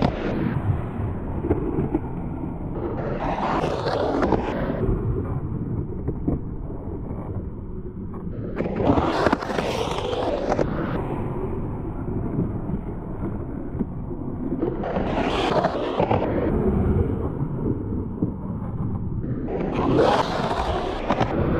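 Skateboard wheels rolling and carving on smooth concrete in a skate bowl: a continuous rumble that swells and fades about every five seconds, five times in all, as the board sweeps up the walls and back down.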